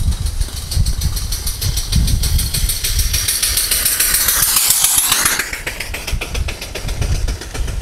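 Home-built steam motorcycle's steam engine running under way: rapid, even exhaust chuffs with a loud hiss of steam. It is loudest as it passes close by about four to five seconds in, then the hiss falls in pitch as it moves away.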